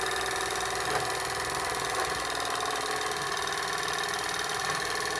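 Jensen Model 75 live steam engine running steadily, with a fast, even beat over a hiss of escaping steam.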